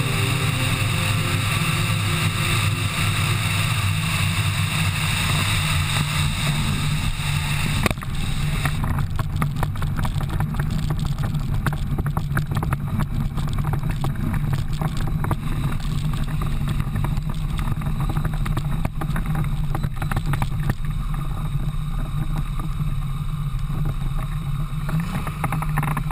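Steady drone of a small aircraft's engine and propeller. About eight seconds in, the hiss above it drops away and the sound turns duller while the low drone keeps going.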